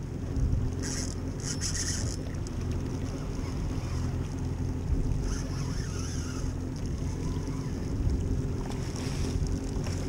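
Boat motor running with a low, steady hum, under wind buffeting the microphone and water sloshing against the hull, with three brief high hissing spells: about a second in, around the middle and near the end.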